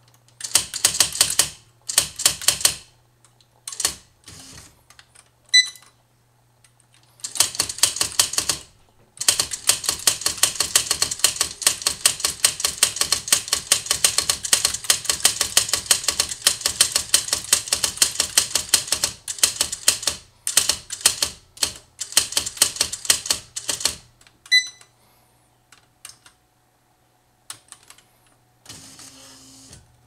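Smith Corona XL 1900 electronic daisy-wheel typewriter printing a line of underlined text by itself, as fast runs of sharp character strikes. A few short bursts come in the first seconds, then one long rapid run from about nine seconds in to about 24 seconds, then a few scattered strikes. Two brief electronic beeps sound, one about five seconds in and one just after the long run, over a faint low hum.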